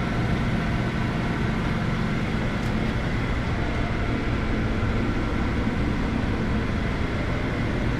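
Steady machinery hum with a faint, even high whine, unchanging in level.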